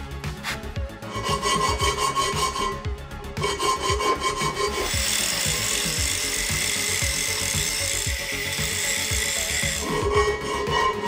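Angle grinder grinding the end of a steel tube flat and square, a steady harsh grind from about five seconds in that stops about ten seconds in. Background music with a steady beat plays throughout.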